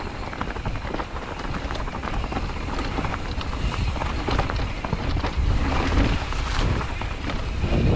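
Mountain bike rolling along a dirt forest trail: tyres crunching over dry leaves and gravel, with many small rattling clicks from the bike, over a steady low rumble of wind and motion on the microphone.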